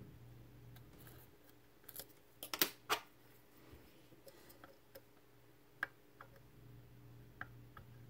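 Steel lock picks clicking and clattering against a lock cylinder and each other as picks are swapped: a burst of sharp clicks about two and a half seconds in, then a few single light clicks later, over a low steady hum.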